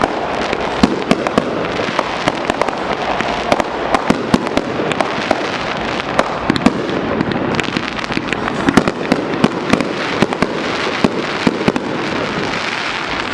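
Aerial fireworks going off in quick succession: a dense crackling hiss punctuated by many sharp bangs, several a second, without a break.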